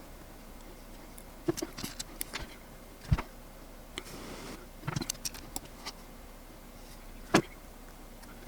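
Scattered small clicks, taps and knocks of metal tools and brass inserts against 3D-printed plastic parts being handled on a workbench, with two sharper knocks about three and seven seconds in.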